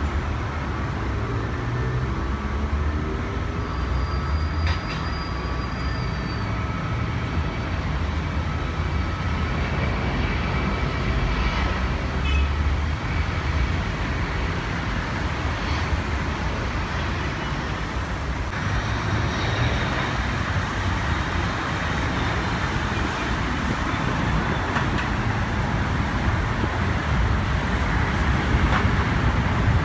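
A steady low rumble of traffic and airport ground noise. From about two-thirds of the way in, a jet airliner's engines at takeoff power add a loud, even roar that holds to the end.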